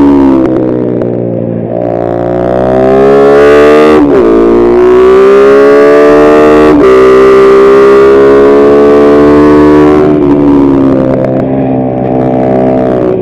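Kayo MR150 pit bike's single-cylinder four-stroke engine pulling hard, its pitch climbing, with sharp breaks at gear shifts about four and seven seconds in. It holds high revs, then drops as the throttle closes about ten seconds in, and rises again near the end.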